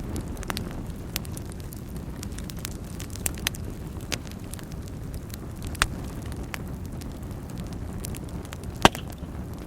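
Wood fire burning in a fireplace: a steady low rumble of flames with scattered crackles and snaps, and one louder pop near the end.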